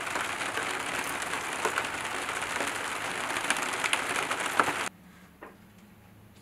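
Steady rain falling, a dense hiss with scattered drop taps. It cuts off abruptly about five seconds in to a quiet room with a faint low hum and a couple of soft knocks.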